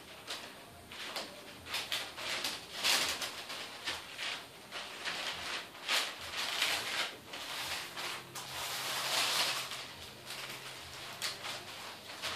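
Parchment paper and plastic sheeting rustling and crinkling as they are folded and smoothed by hand, in a string of short, irregular swishes.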